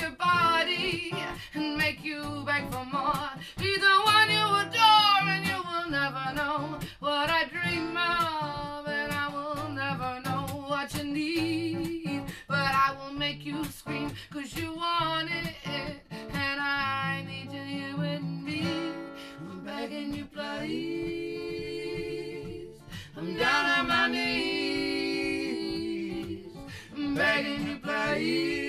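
Acoustic guitar accompanying female lead and backing vocals in a funk-soul song. Near the end the notes are held long and several voices sing together.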